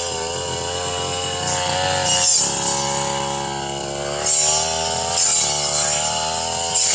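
Brush cutter engine running at high speed while its blade cuts into thick brush, the pitch dipping and recovering as it takes the load, with short bursts of hiss each time the blade strikes growth.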